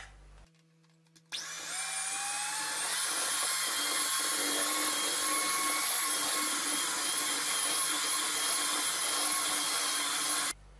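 Electric hand mixer starting about a second in and running steadily, its beaters whipping thick, chilled chocolate pastry cream in a glass bowl; its whine rises briefly as it comes up to speed. It cuts off suddenly near the end.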